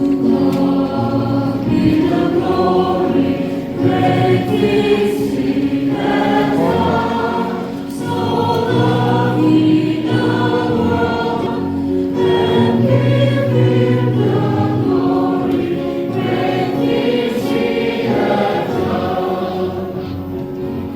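A choir singing a hymn, with held notes that change every second or so.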